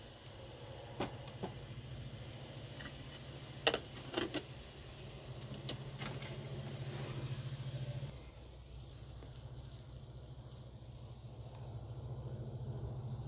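Tea being poured into glass tea cups on a metal tray, with a few sharp clinks and knocks in the first six seconds as the teapot is handled and set down. Near the end, hot water pours from a blackened kettle into a tea glass. A steady low hum runs underneath throughout.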